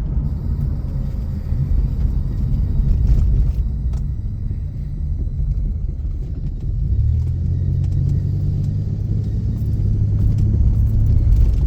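Low, steady rumble of a car's engine and road noise heard from inside the cabin, settling into a steadier low drone about seven seconds in.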